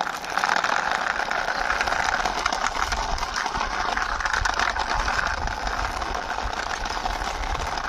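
Plastic toy car pushed by hand along rough concrete, its wheels rolling and scraping in a steady rattle of fine clicks.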